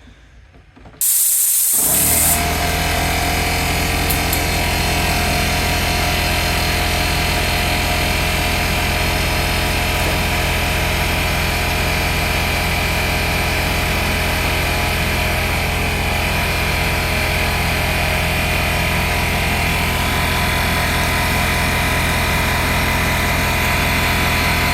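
Portable electric air compressor starting up about a second in with a short hiss, then its motor and pump running steadily as it fills the tank. It is powered through a 14 or 16 gauge extension cord, which is not the best size for it.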